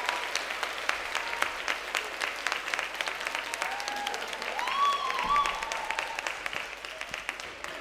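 Audience applauding, the clapping gradually thinning and fading away.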